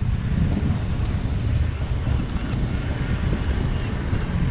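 Wind buffeting the microphone of an action camera on a moving bicycle: a steady low rumble.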